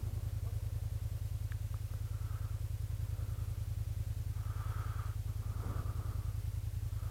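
Kymco AK550 scooter's parallel-twin engine running steadily at low revs, a low, even pulsing hum with no change in speed.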